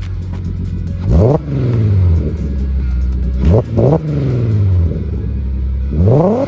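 A 3.6-litre VR6 engine with custom headers and a resonator and muffler exhaust, idling and blipped four times: once about a second in, twice in quick succession midway, and once near the end, each rev rising sharply and falling back to idle.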